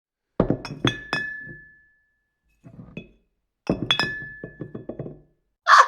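Two quick runs of sharp clinks, about half a second and about four seconds in, each leaving a brief ringing note, with a soft rustle between them.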